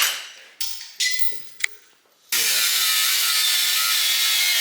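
Workshop tool noises: a few short scraping and knocking bursts and a click, then a moment of quiet. A little past halfway a power tool starts suddenly and runs steadily, with a slight waver in its pitch.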